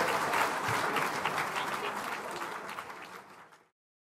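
Audience applauding, fading out and stopping about three and a half seconds in.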